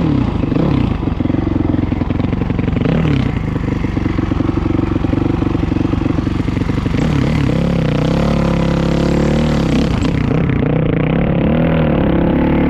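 A vehicle engine running loud and close, its pitch rising and falling as its speed changes.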